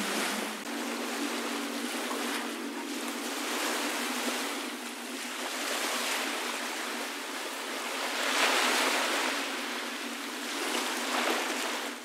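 Small Caribbean surf washing and lapping onto a sandy beach. Each wave rises and falls away every few seconds, and the biggest wash comes about eight seconds in.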